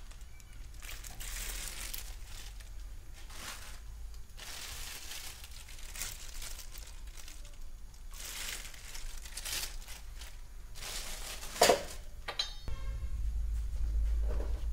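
Several bursts of crinkly rustling from handling, then a single sharp metal clank about twelve seconds in, followed by a low steady rumble.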